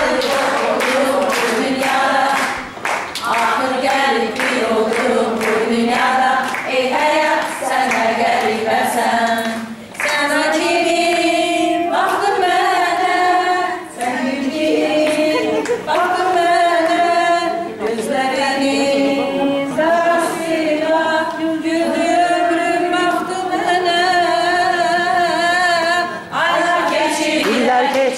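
A group of women singing together without instruments, with hand clapping on a steady beat in the first part. From about ten seconds in, the voices hold long notes.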